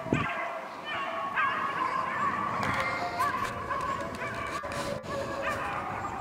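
A pack of beagles baying as they run a rabbit, several dogs' long howling notes overlapping.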